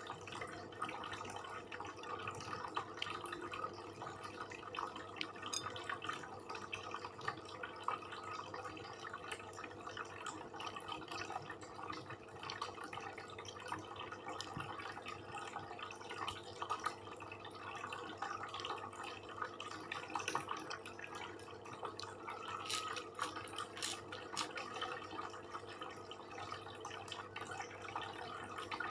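Close-up wet chewing and mouth clicks of someone eating, a steady stream of small irregular smacks, a little louder near the end.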